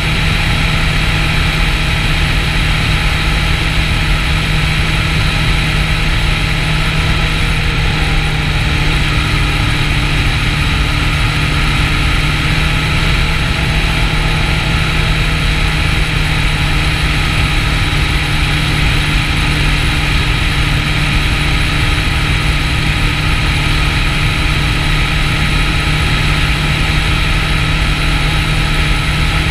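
Kawasaki Ninja 650's parallel-twin engine running at a steady cruise, its pitch holding even throughout, under a steady rush of wind and road noise over the bike-mounted microphone.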